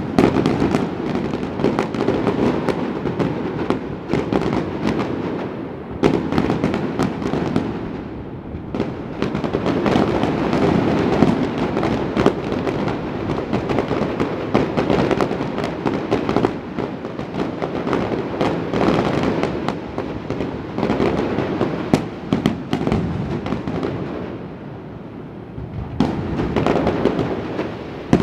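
Aerial fireworks display: a continuous barrage of crackling and many sharp bangs. The barrage eases briefly about eight seconds in and again shortly before the end, then picks up.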